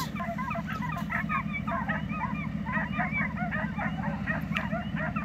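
A pack of hounds baying on a running coyote: many short, overlapping barks, several a second, over a low steady hum.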